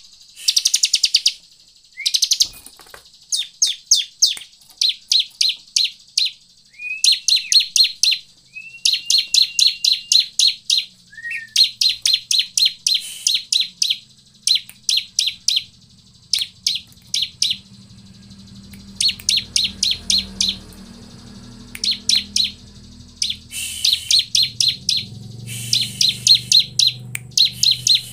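Bar-winged prinia (ciblek) calling in a long series of short, rapid chattering bursts, each under a second, repeated with brief gaps; a few bursts open with a short rising note. A faint low hum runs underneath from partway through.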